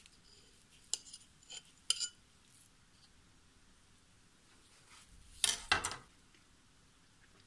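Metal fork and knife tapping and clinking lightly against a ceramic saucer, a few short clicks in the first two seconds. About five and a half seconds in comes a louder cluster of sharp clicks.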